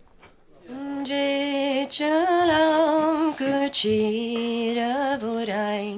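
A woman singing unaccompanied, starting about a second in and moving through slow, held notes with vibrato.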